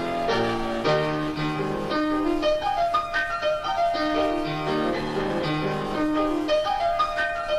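Solo piano playing a lively passage of quick, closely spaced notes over changing lower notes.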